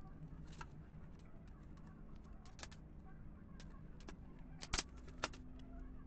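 Light clicks and taps of stiff PVC plastic strips knocking together as they are handled, with two sharper knocks near the end, over a steady low hum.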